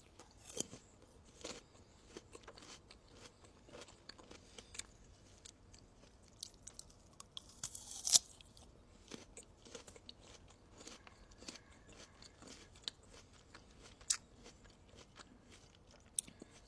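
Close-miked ASMR eating: a person biting and chewing crisp raw guava, with scattered wet crunches and crackles. The loudest crunch comes about eight seconds in.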